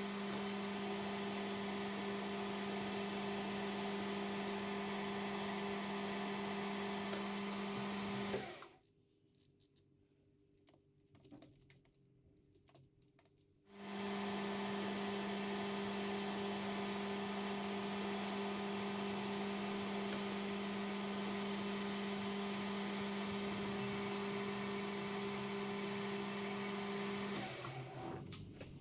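Workshop machine tool motor running with a steady, even hum. It stops about eight seconds in, leaving a few light clicks, then starts again and runs until just before the end.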